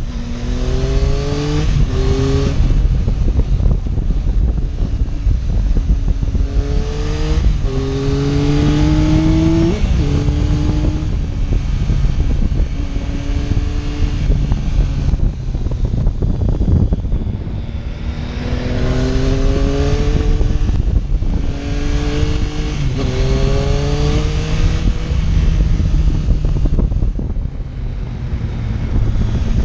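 Motorcycle engine accelerating hard through the gears, its pitch climbing and dropping with each quick upshift. There are two runs of shifts, with steadier cruising between them, under constant wind rush.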